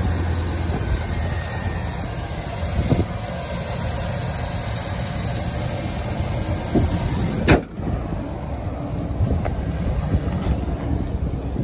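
A 2008 Chevrolet Silverado 1500 pickup's engine idling steadily, with one sharp knock about halfway through.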